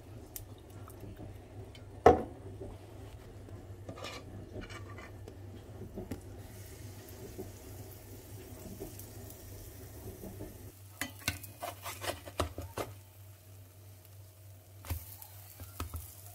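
Cookware clatter over a faint sizzle as pancakes fry in an oiled metal frying pan. There is one sharp clank about two seconds in, then scattered clicks and scrapes of utensils against the pan, with a busier run of them about eleven to thirteen seconds in.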